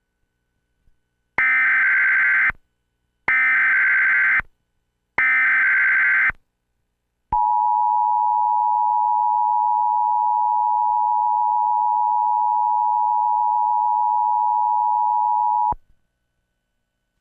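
Emergency Alert System tones: three short bursts of SAME header data, each about a second long, then a long steady attention tone of about eight seconds that cuts off suddenly. The tones announce a National Weather Service tornado warning.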